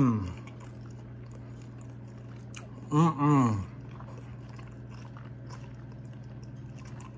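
A person chewing a cooked mussel with the mouth closed, with faint wet chewing clicks, and two short hummed 'mmm' sounds of enjoyment falling in pitch, one right at the start and one about three seconds in, over a steady low hum.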